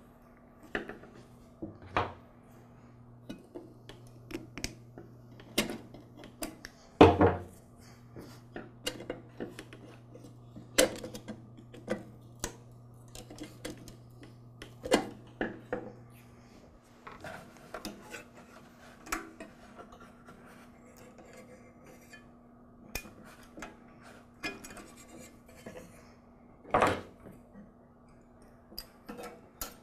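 Intermittent clicks, clinks and knocks of hand tools and metal parts as a carburetor is unbolted and pulled off a lawn mower engine, with a steady low hum underneath.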